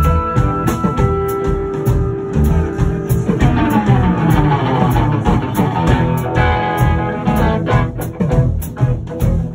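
Live rock band playing an instrumental passage on electric guitars, bass guitar and drum kit. A guitar holds long sustained notes at first, and the playing turns busier about three seconds in, over a steady drum beat.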